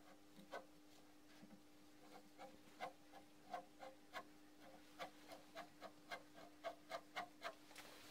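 Faint clicks and ticks from a leadscrew and its end plate being turned and handled by hand during a test fit, coming quicker from about five seconds in, over a faint steady hum.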